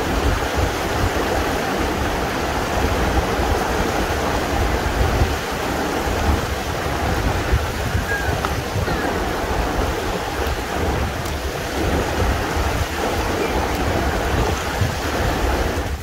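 Rushing water of a rocky river: a steady, loud rush with a low rumble underneath.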